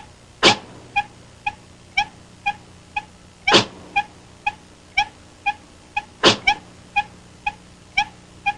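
A high-pitched cartoon squeak repeating evenly, about twice a second. Three times a louder, short rushing burst cuts in over it.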